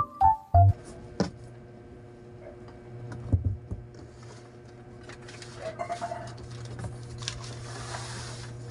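A few last notes of electronic keyboard music end within the first second. Then sheets of decorative paper rustle and crinkle as they are handled, loudest in the last three seconds, over a steady low hum.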